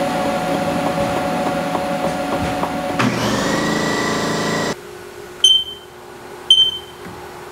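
Haas OM-2A CNC mill running with a steady machine whine as its axes move, shifting to a higher tone about three seconds in. After that come two short electronic beeps, about a second apart, from keys being pressed on the Haas control panel.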